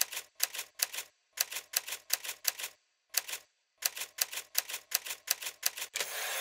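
Typewriter keys striking one by one, about twenty sharp clacks at an uneven typing pace with a short pause midway. Near the end comes a longer, louder noisy sweep.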